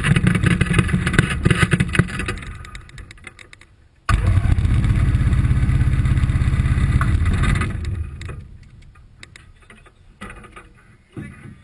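Ultralight aircraft engine running loud with a fast pulsing note, dying away from about two seconds in. It comes back abruptly and loud about four seconds in, dies away again near eight seconds, and only faint clicks and knocks remain.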